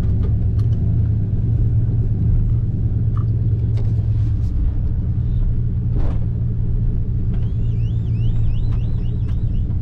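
Steady low engine and road rumble inside a pickup truck's cab as it drives slowly. Near the end, a string of high, repeated rising-and-falling chirps, a bird calling.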